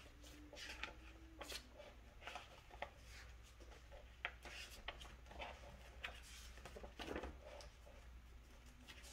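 Faint rustling of paper being handled, with scattered light ticks, over a low steady room hum.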